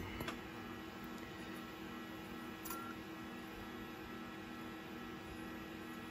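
Low steady electrical hum over quiet room tone, with one faint click about two and a half seconds in.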